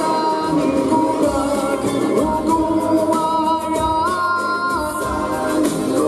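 A man singing an Arabic song into a microphone, holding long notes that step and slide in pitch, over musical accompaniment.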